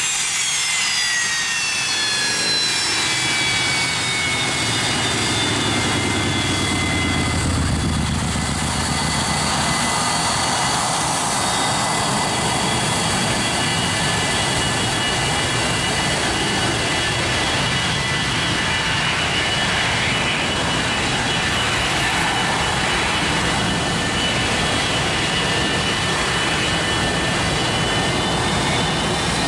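Boeing 727's rear-mounted Pratt & Whitney JT8D turbofans running as the jet taxis and turns at the runway end. A high whine falls in pitch over the first few seconds, then a steady whine over a continuous low rumble and roar.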